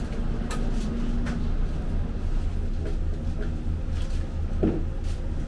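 A steady low rumble with a few light, sharp clicks scattered through it.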